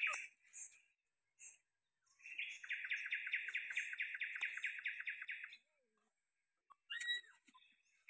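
Birdsong: a fast trill of evenly repeated notes, about five a second, lasting about three seconds from about two seconds in, with shorter chirping calls at the start and again about seven seconds in.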